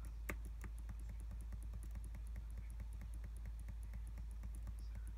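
Light clicks at a steady pace, about four a second, over a low steady hum.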